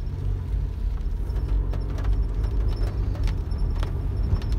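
Car interior noise while driving on a wet road: a steady low rumble of engine and tyres, with a few faint light clicks scattered through it.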